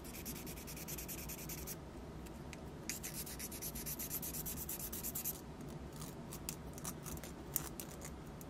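Nail file rasping back and forth along the edge of a raw carbon-fibre RC part, wet-sanding off the sharp stamped edge so it won't splinter. Two runs of quick scratchy strokes are followed by a few scattered ones.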